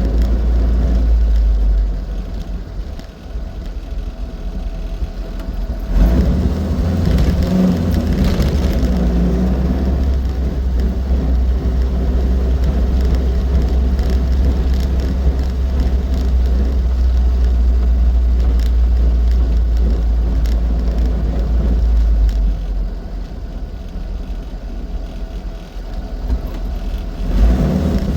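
Austin 7 Ruby on the move, its small four-cylinder engine and the car's road noise making a steady low rumble. The sound drops back twice for a few seconds, about two seconds in and again near the end, then picks up again.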